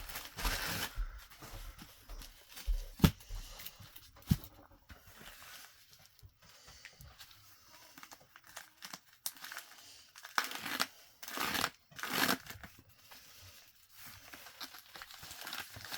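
Packaging being handled and unwrapped while comics are unpacked: irregular crinkling and tearing, with two sharp knocks about three and four seconds in and louder rustling later on.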